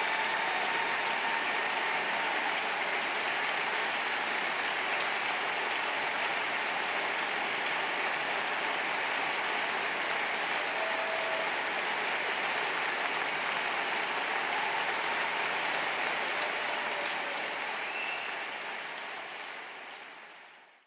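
Concert audience applauding steadily, fading out near the end.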